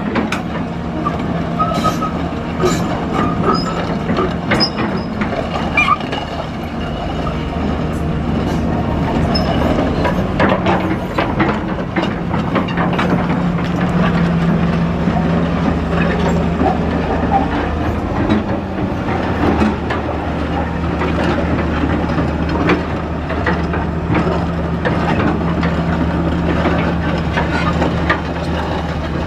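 Hyundai Robex 210LC-3 excavator working, its Cummins 6BT six-cylinder diesel running steadily under a continuous metallic clatter and clanking. The engine note rises briefly about halfway through and shifts again a few seconds later as the load changes.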